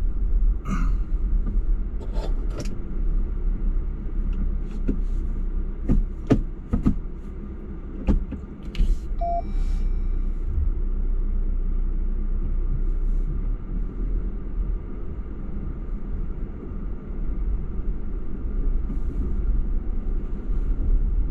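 Jeep crawling slowly over a boulder-strewn trail: a steady low engine and drivetrain rumble, with a cluster of sharp knocks and creaks from tyres and suspension on the rocks partway through.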